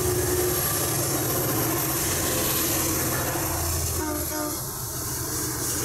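Freight train led by three EMD diesel-electric locomotives (a GP39-3, a GP50 and a GP39-2) passing, its engines making a steady low drone, with the freight cars rolling along the rails behind them.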